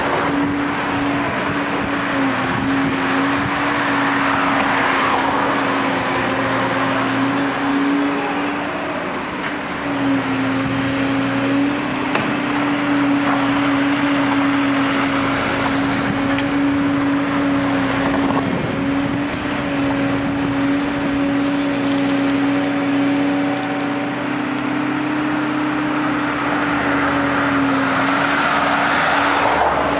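Diesel engines of a wheeled excavator and a tractor running steadily at an even, constant pitch while loading, with a rushing noise that swells near the start and again near the end.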